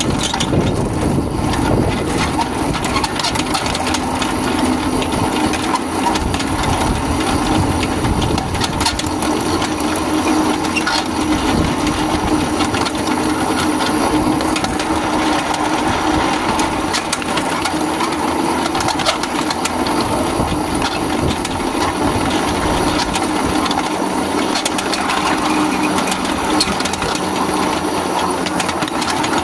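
Steel wheels of a ride-on miniature railway train rolling over small-gauge track: a steady rumble with frequent clicks and knocks at rail joints and turnouts, and a small engine humming underneath.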